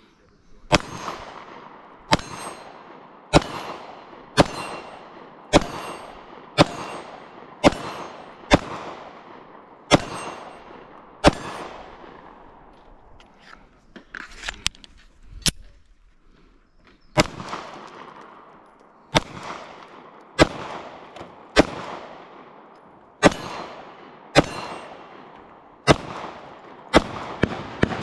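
Glock 43X MOS 9mm pistol fired at a steady pace of about one shot a second, each shot cracking sharply with a long echo trailing off. After ten shots there is a pause of about six seconds with a few small metallic clicks of handling, then a second string of shots.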